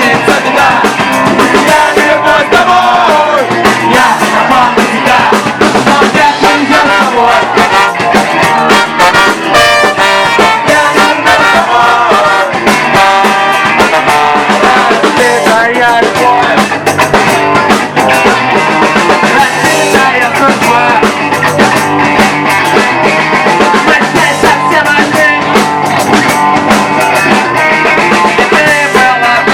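A rock band playing an acoustic version of a song live, with guitars and singing; loud and continuous.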